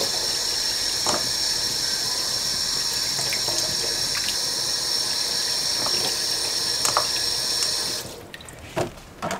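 Kitchen tap running a spray of water into a stainless steel sink while cherries are rinsed by hand under it. The water stops about eight seconds in, followed by a couple of short knocks.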